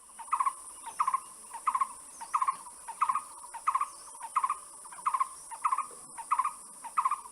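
A bird calling a long, even series of short notes, about three every two seconds, over a steady high hiss.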